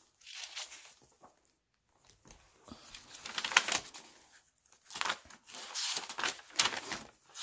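Paper pages of a handmade journal rustling and crinkling as they are turned and a folded page is opened out by hand, in uneven bursts with a short lull early on.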